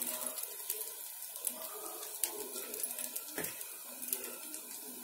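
Tomato dosa batter sizzling softly on a hot iron tawa, a steady hiss with scattered faint crackles.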